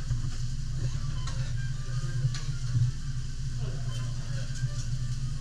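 Food sizzling on a steel teppanyaki griddle, with a few sharp clicks of metal spatulas against the plate, over a steady low hum.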